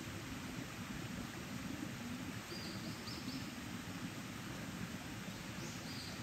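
Mountain stream flowing steadily, with a few faint, short, high bird chirps around the middle and again near the end.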